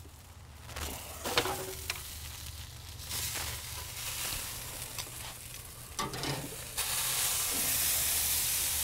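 Thick ribeye steaks sizzling as they are laid with tongs on the grate over the direct fire of a Kamado Joe ceramic grill for a hard sear. The sizzle gets much louder about two-thirds of the way through, after a few light clicks near the start.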